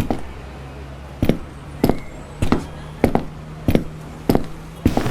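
A steady series of sharp knocks or taps, evenly spaced at a little under two a second, over a faint low hum.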